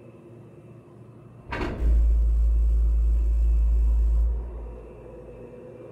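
Film sound effect for a steaming machine: a brief sliding tone about one and a half seconds in, then a loud deep hum with a hiss of steam over it for about two and a half seconds, fading away.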